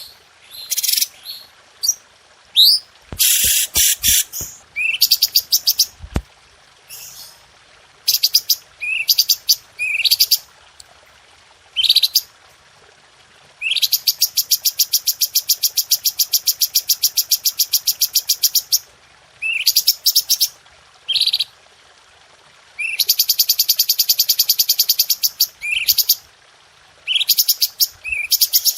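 A cucak cungkok bird singing: short upswept chirps, then long, fast trills of rapidly repeated sharp notes, one lasting about five seconds around the middle and another a few seconds before the end. A few faint low thumps come early on.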